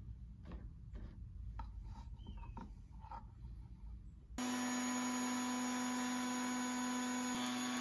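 Light clicks and taps of hands handling the fence and bit of a router table. Then, about four seconds in, the router switches on abruptly and runs with a steady high whine and hiss, fitted with a slot-cutting bit to cut the groove for the base of a mahogany box.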